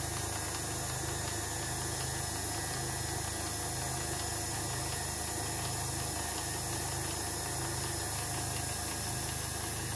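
KitchenAid Classic stand mixer's motor running steadily, turning the pasta roller attachment as a sheet of pasta dough is fed through: an even mechanical whir with a low gear hum.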